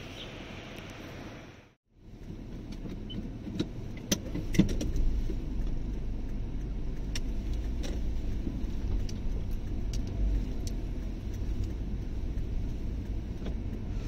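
Car driving, heard from inside the cabin: a steady low road and engine rumble that cuts out briefly about two seconds in, then comes back stronger, with a few sharp clicks and rattles around four to five seconds in.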